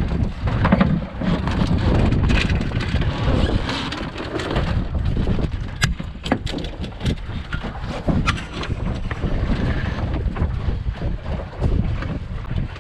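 Wind buffeting the microphone aboard a Wanderer sailing dinghy under way, a heavy steady rumble with scattered sharp slaps and knocks.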